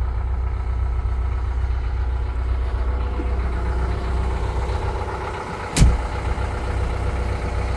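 Homemade ride-on locomotive's engine idling steadily with a low hum, and one sharp knock about six seconds in.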